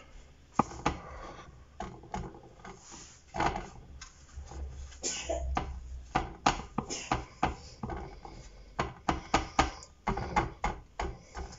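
Hand pressing and turning minced-meat patties in breadcrumbs on a disposable paper plate: irregular soft taps and crackles of fingers on the plate, with a dry rustle of crumbs between them.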